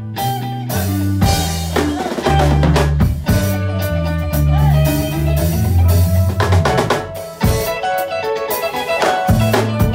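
Live band playing an instrumental groove: drum kit, electric bass and electric guitar. The bass line drops out for about two seconds near the end while the drums keep striking, then comes back.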